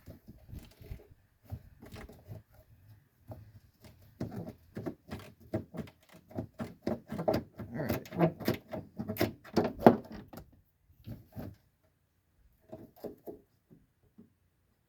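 Hand tools clicking and knocking on a tight bolt, most likely a ratchet wrench working a 10 mm bolt loose. The clicks come in a dense, uneven run in the middle, with a few scattered ones after it.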